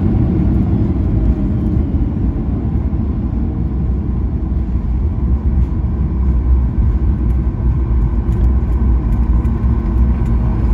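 Cabin noise of a Boeing 737 MAX 9 rolling on the ground after landing: a steady low rumble from the wheels and airframe, with the CFM LEAP-1B engines running at idle.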